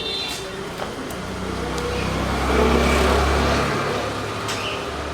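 A motor vehicle passing: a low engine rumble and road noise swell over a couple of seconds, then the rumble drops away about three and a half seconds in.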